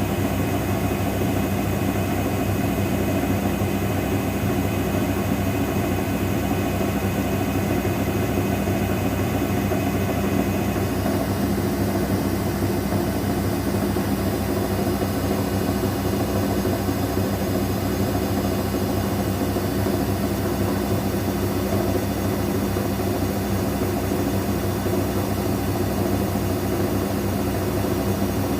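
Daewoo DWD-FT1013 washing machine spinning at 800 rpm with an unbalanced load: a steady, loud hum from the motor and drum.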